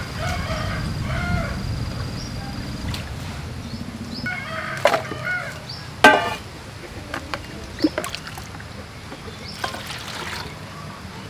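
Water sloshing as leafy greens are washed by hand in an aluminium bowl, with a sharp ringing metallic clank from the bowl about six seconds in. Near the end, water is poured from a plastic dipper into the bowl.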